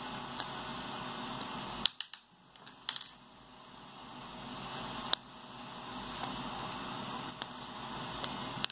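Scattered small, sharp clicks and taps of a metal hex driver and 3D-printed plastic parts being handled: two about two seconds in, a quick cluster near three seconds, then single clicks every second or two, over a steady hiss.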